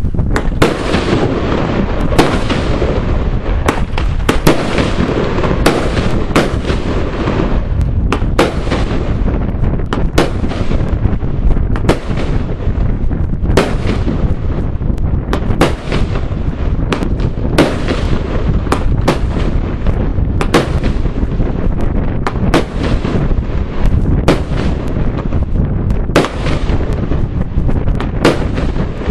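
Pyrogroup Europe Cake G, a 25-shot consumer firework cake, firing 20 mm bombette shells in steady succession, about one a second, each shell bursting with a sharp bang.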